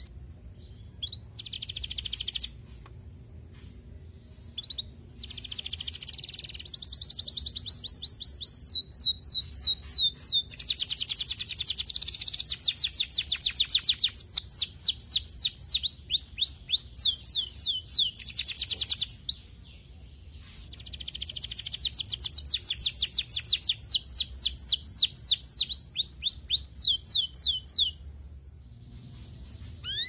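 Domestic canary singing: two long songs of rapid trills, each a fast run of quick falling notes, after a few short bursts near the start. The first song runs from about five seconds in to nearly twenty, the second from about twenty to twenty-eight seconds.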